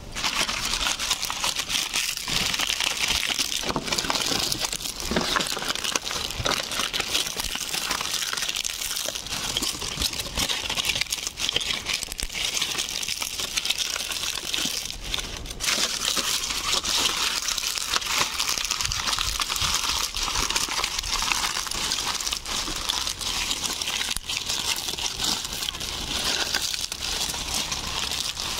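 Dry, dead banana leaves hanging on the plant rustling and crinkling continuously, a dense papery crackle of many small clicks.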